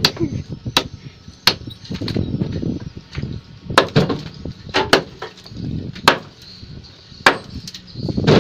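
Hand hammer with a wooden handle striking a precast concrete pile, sharp blows about once a second, cracking the concrete apart as the pile is cut.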